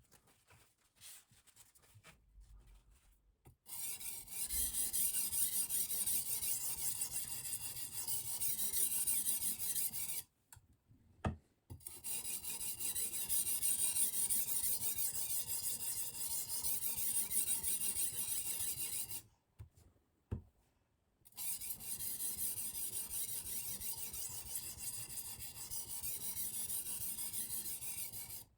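Silicon carbide oil stone on a guided sharpening system scraping along the edge of a Damascus chef knife with a VG10 core. It sounds as steady scraping in three long spells of about six to seven seconds each, separated by short pauses with a light click in each.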